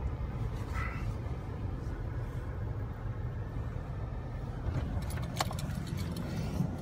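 Steady low road and engine rumble of a car driving, heard from inside the cabin. A few sharp clicks and clinks come about five seconds in.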